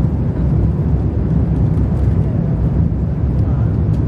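Steady low rumble inside the passenger cabin of an Airbus A350-1000 airliner, the noise of the jet and its engines heard through the fuselage.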